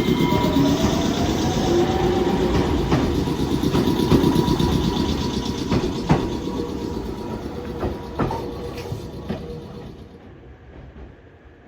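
A train running on rails: a steady rumble with a few sharp clicks, fading away near the end.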